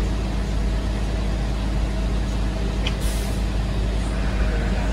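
Heavy truck engine idling with a steady low rumble, and a short air-brake hiss about three seconds in.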